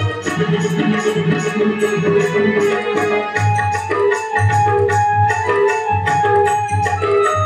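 Devotional kirtan music, instrumental: a harmonium playing a melody over a steady beat of hand drums.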